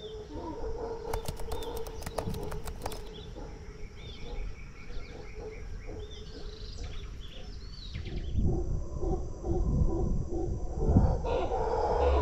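Tropical forest birds calling and chirping over a steady background hum of the jungle. A deeper, louder stretch of sound comes in about two-thirds of the way through.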